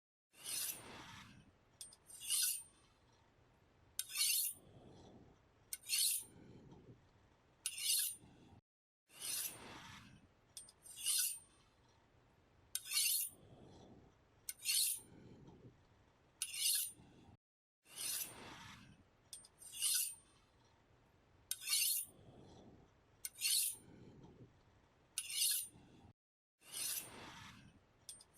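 A knife blade being sharpened: repeated scraping strokes of steel drawn along a sharpener, each a bright, high rasp, often followed by a softer, lower swish, coming about every two seconds.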